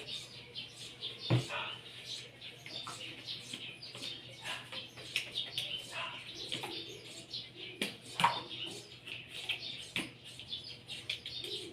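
Knocks and clatter of plastic feeding-bottle parts being handled while they are soaped. A sharp knock comes about a second and a half in, and more follow near the end, over many short high chirps.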